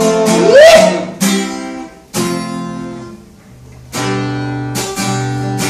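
Acoustic guitar (violão) strumming a few chords, each left to ring and fade, with a sung note trailing off in the first second.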